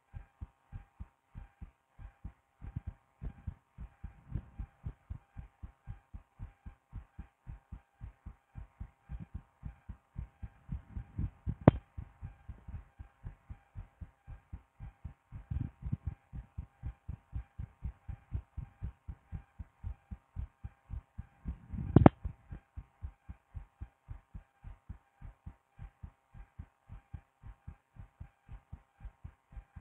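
Human heartbeat heard through a stethoscope: a steady, even run of low thumps over a faint steady hum. Two sharp knocks, the loudest sounds, come a little before halfway and about three-quarters of the way through.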